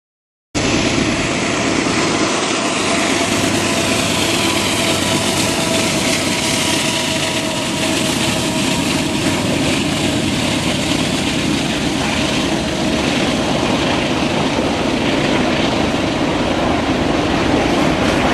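Canadian Pacific freight train passing, its diesel locomotives and rolling freight cars making a steady rumble and rush of wheels on rail that cuts in suddenly about half a second in.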